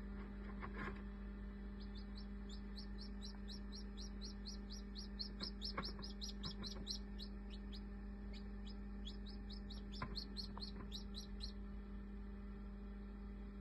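Newly hatched chick peeping: a fast run of short, high, downward-sliding peeps, about four or five a second, with a short break in the middle, over a steady low hum.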